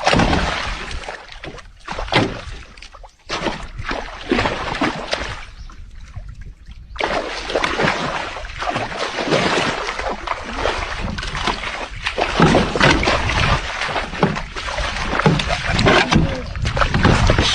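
Boat on the water: rushing water and splashing, with the sound changing abruptly about seven seconds in.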